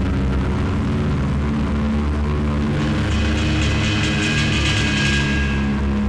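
Electronic music: a dense, droning low end with sustained tones. About halfway in, a bright, rapidly pulsing high texture swells for a couple of seconds, then fades.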